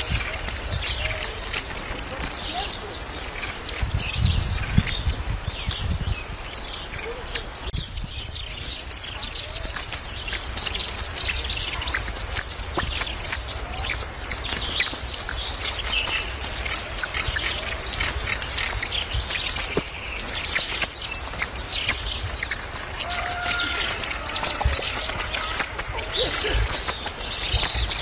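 Red-necked tanager (saíra militar) singing: a fast, unbroken run of very high, thin twittering notes. It is softer for a few seconds near the start, then carries on dense and steady.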